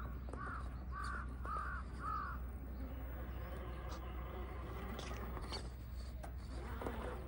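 A bird calling outdoors: a quick series of about five arched calls, roughly two a second, that stops a couple of seconds in.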